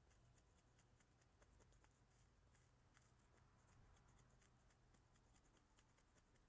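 Near silence, with faint soft clicks and puffs of a man drawing on a tobacco pipe held in his mouth.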